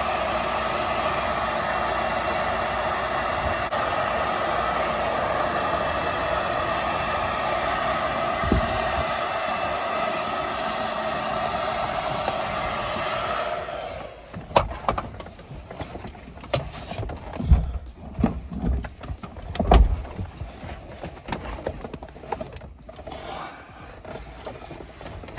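Hand-held hair dryer blowing steadily on high, heating a car's press-fit gear shift knob to loosen it; it switches off suddenly about halfway through. Scattered knocks and clunks follow as the knob is worked loose from the shift lever.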